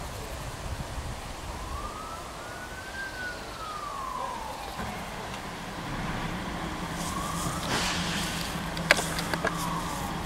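Emergency-vehicle siren wailing, its pitch rising and falling slowly twice. A steady low engine hum joins about halfway, and a single sharp crack, the loudest sound, comes near the end, followed by two fainter clicks.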